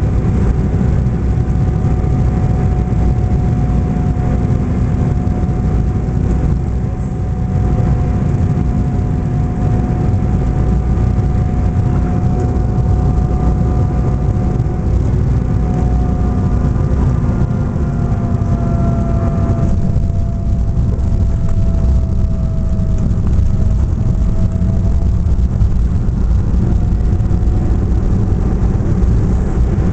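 Cabin noise of an Embraer E-190 jet airliner landing, heard from a window seat over the wing: steady jet engine drone and airflow rumble with a thin engine whine. Past the midpoint the whine slowly drops in pitch, then climbs again near the end.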